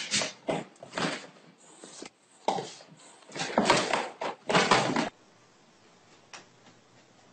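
Scuffling and knocking as a dog paws at a cat on an upholstered chair and the cat swats back, in a string of irregular bursts that stop suddenly about five seconds in.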